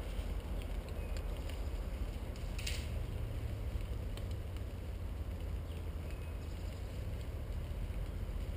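Steady low rumble of wind and handling noise on a head-mounted GoPro in its housing, with a few faint ticks and one short hiss about two and a half seconds in.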